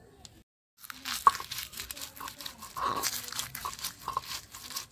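Stone pestle crushing fried onion, green chillies, dried red chillies and salt on a flat stone grinding slab (Bengali shil-nora). It is a dense crunching and scraping, with sharp cracks as the dried chillies break, starting about a second in.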